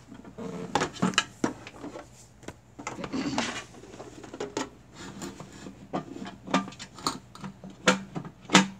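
Plastic humidifier parts knocking and clicking as they are pushed and fitted into the humidifier's housing by hand, an irregular scatter of sharp knocks with a few louder ones near the end.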